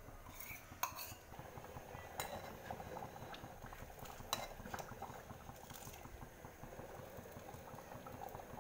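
Steel ladle and bowl clinking and scraping against a steel pot while thick black chickpea curry is poured and stirred, with a few sharp clinks standing out.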